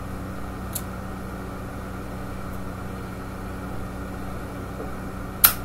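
Ronson Windy windproof lighter lighting a pipe: a light click about a second in and a loud sharp click near the end, over a steady low hum.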